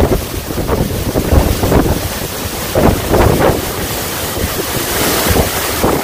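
Waterfall's steady rush of falling water, with irregular gusts of wind buffeting the microphone close to the plunge pool.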